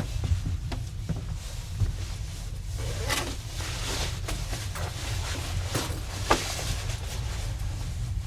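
Wind buffeting the microphone as a steady low rumble, with short rustling noises now and then.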